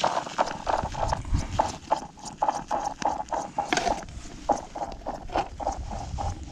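Red plastic spool of a pike tip-up (zherlitsa) being wound in by hand, a quick run of short plastic clicks about four or five a second.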